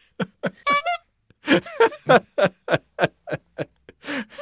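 A short, wavering squeeze bicycle-horn honk dubbed in over a bleeped-out swear word, followed by a quick, even run of laughter at about three or four laughs a second.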